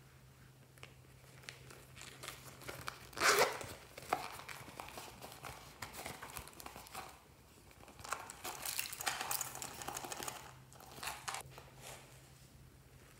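Handling and unzipping a vinyl zippered coin purse: a short, loud zip rasp about three seconds in, then crinkling and rustling as the purse is worked open and its contents shaken out.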